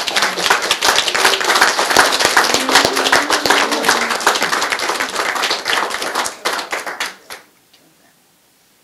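Small group of guests applauding, with voices mixed into the clapping. The applause dies away about seven seconds in, leaving a few stray claps.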